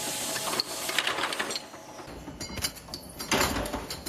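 Small metalworking machine drilling and punching steel lock sleeves, with a fast, even clatter that stops about one and a half seconds in. Scattered metal clicks and knocks follow, the loudest a little after three seconds.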